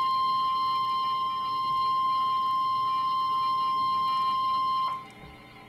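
NOAA Weather Radio 1050 Hz warning alarm tone: a steady single-pitch tone that cuts off suddenly about five seconds in, leaving faint radio hiss. The tone signals that a warning broadcast follows.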